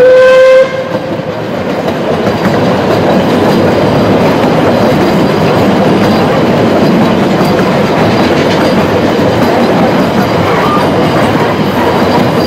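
Narrow-gauge steam train running along the track, heard from an open carriage: the steady running noise of the carriages' wheels on the rails. It opens with a short blast of the NA-class steam locomotive's whistle, which cuts off about half a second in.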